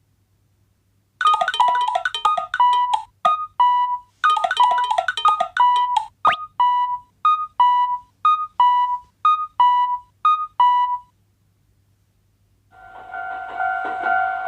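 Synthesizer jingle in two quick runs of bright notes. Then single electronic tones repeat evenly about twice a second for several seconds and stop. Near the end a steady sound with two held pitches and a hiss starts up.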